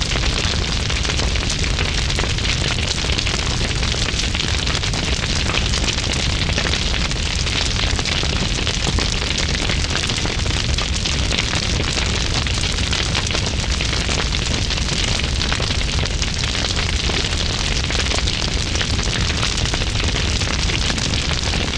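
Large blazing fire burning steadily with dense, heavy crackling over a low rumble.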